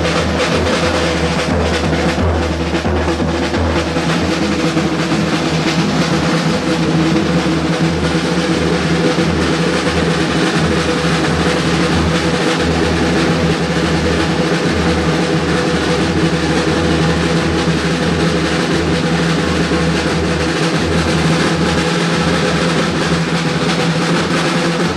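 A group of street drummers on large bass drums and snare drums playing a fast, unbroken beat.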